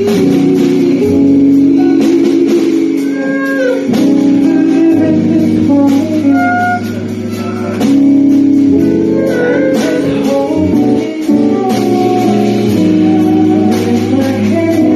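Live band music from a cover mashup of two soul songs: held chords with short melodic lines over them.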